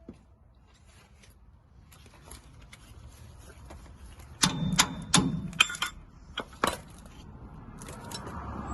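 A quick run of sharp metallic clinks and clatter, about halfway through, with a brief ringing note in one of them: hand tools and steel brake parts knocking together during a brake job.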